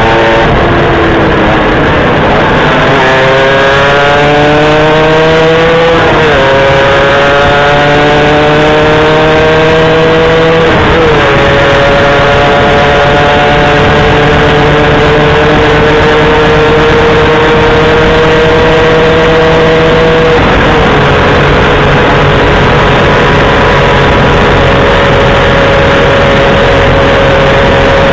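A vehicle engine accelerating up through the gears. Its pitch climbs and drops at each upshift, about six, eleven and twenty seconds in, then it holds a steady cruise, with heavy road and wind noise.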